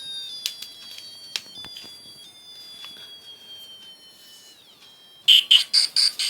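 Electronic sound chip of a children's sound book playing: a thin high tone falling slowly in pitch among scattered clicks, then about five seconds in a loud, fast pulsing beep tune starts, about four pulses a second.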